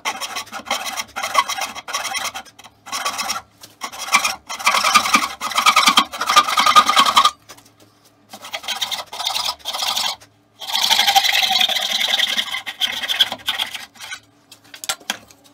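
Hand plane run on its side along a shooting board, shaving the end grain of a quarter-sawn oak stretcher to length. It makes a rough rasping scrape in repeated strokes, mostly short ones, with two long runs of about three seconds near the middle and later on.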